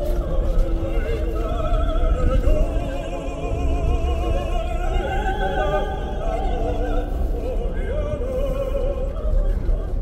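Operatic singing with wide vibrato, held notes rising and falling, over a steady low rumble.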